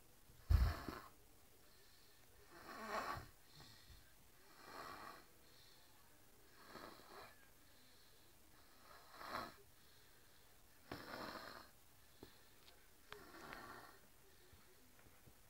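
A person snoring in a swing, with about seven snores spaced roughly two seconds apart. The first snore, near the start, comes with a loud low thump.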